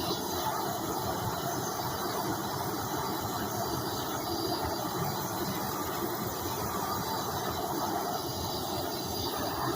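A torch flame burning with a steady, unbroken hiss as it scorches the surface of carved wood.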